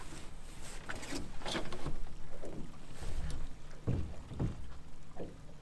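A fishing pot hauled up by hand over a boat's side: water splashing and the wet line rubbing as it comes in, with a few dull knocks in the second half.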